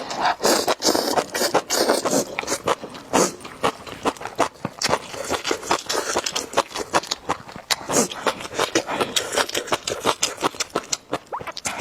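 Close-miked eating of spicy noodles: slurping and chewing with a fast run of wet mouth clicks and smacks.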